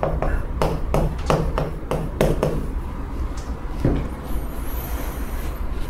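Chalk writing on a chalkboard: a quick run of taps and scratches as the chalk strokes hit the board for the first two and a half seconds or so, then one more tap, over a steady low hum.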